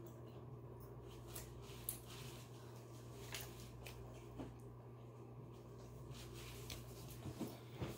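A person chewing a chicken salad sandwich with the mouth close to the microphone: scattered soft clicks and smacks of bites and chewing, over a steady low hum.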